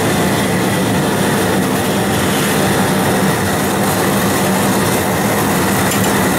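Dual-flame outdoor gas burner running at full flame under a large pot of boiling water, making a loud, steady rushing noise.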